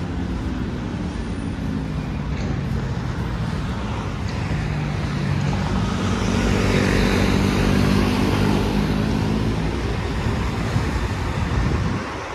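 City street traffic with a vehicle engine passing close, growing louder to a peak about seven seconds in and fading near the end.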